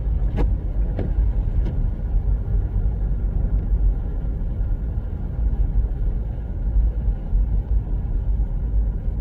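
Low, steady rumble of a car driving, with road and wind noise. A few faint clicks come in the first two seconds.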